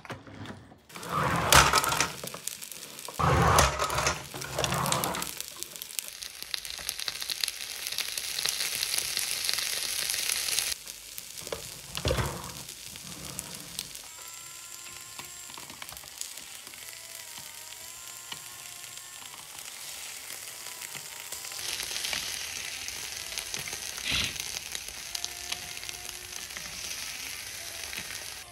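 Fried rice and ketchup sizzling on a hot griddle tray, loudest around the middle and near the end. A few loud noisy surges come in the first five seconds, with a thump and a click later on.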